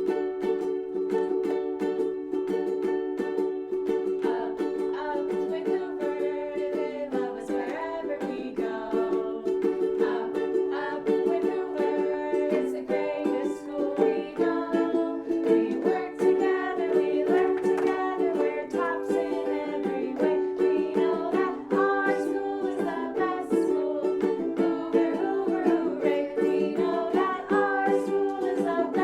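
A strummed string instrument playing the chords of a school song, with singing of the song joining in about seven seconds in.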